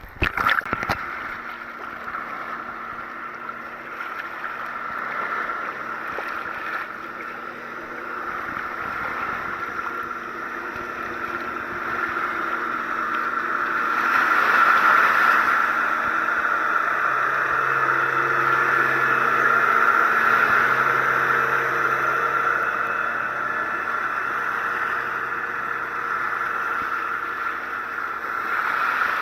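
A boat's engine running steadily, growing louder to a peak about halfway through and easing off toward the end.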